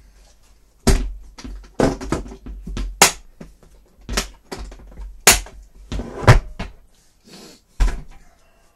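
Black hard-shell plastic drone case being handled and set down on a wooden table: a string of about seven sharp plastic clacks and knocks.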